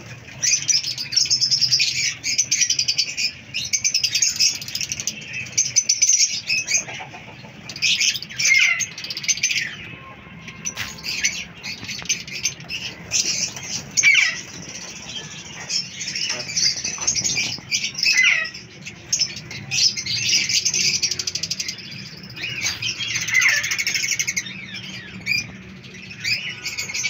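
A large aviary flock of lovebirds (Fischer's and masked lovebirds) chattering together: a constant din of shrill, overlapping chirps and squeaks, with wings flapping.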